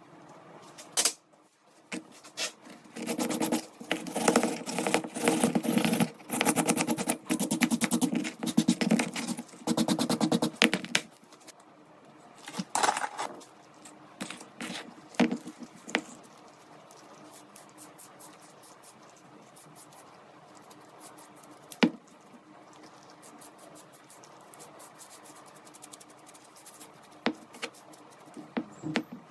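Hand work on a revolver's metal parts: several seconds of rapid, dense scratching and scraping, then scattered light clicks and taps, with one sharp metallic click about twenty-two seconds in.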